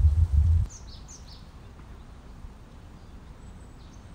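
A low rumble at the start, then quiet outdoor background with a few short, high bird chirps about a second in.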